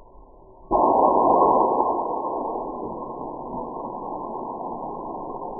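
Bottle charged with soda and vinegar spraying a jet of red liquid from its nozzle: a sudden muffled rushing hiss about a second in, loudest at the start and easing to a steady hiss.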